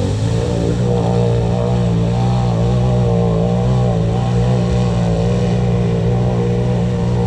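An engine running steadily at a low, even speed close by, its pitch wavering slightly.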